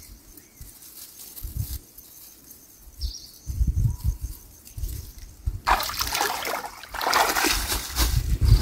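Shallow stream water splashing and sloshing, faint at first, then much louder from about halfway through as someone wades through it.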